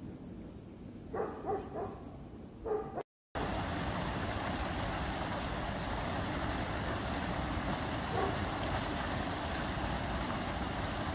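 Muddy floodwater rushing steadily out of a corrugated culvert pipe, starting abruptly about three seconds in. Before it, a quieter stretch with a few short dog barks.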